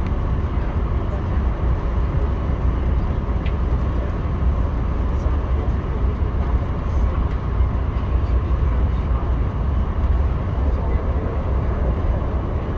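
Passenger train running along the line, heard from inside the coach as a steady low rumble.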